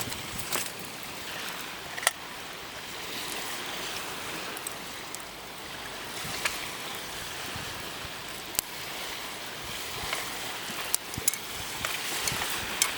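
Steady rain falling, with scattered louder drips ticking at irregular moments, one sharper than the rest about two seconds in.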